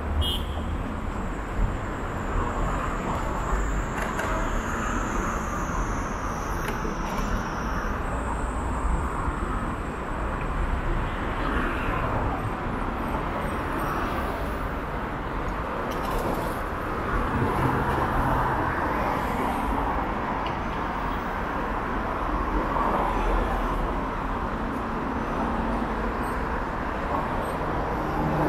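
Street ambience heard while riding: a steady wash of road and traffic noise, with a faint high whine that slowly falls in pitch over the first several seconds.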